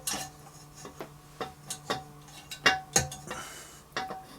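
Light metal clicks and clinks, about a dozen irregular taps, some ringing briefly, as a ceramic-coated tuned pipe is worked onto the O-ringed header of a 1/5-scale RC truck's gas engine.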